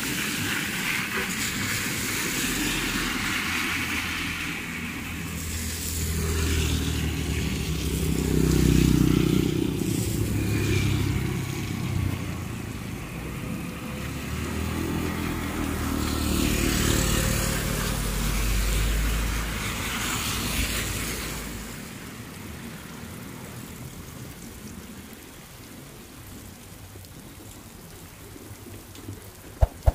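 Motorcycles and a car passing on a wet road, engines running and tyres hissing on the wet asphalt. The passes are loudest about nine seconds in and again around seventeen to twenty seconds in. After about twenty-two seconds it drops to a quieter steady hiss.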